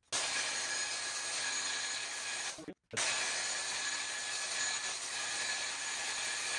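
Electric rotary polisher running steadily with a faint hum, its foam pad buffing compound on a painted steel panel. There is a brief break about three seconds in, then it runs on.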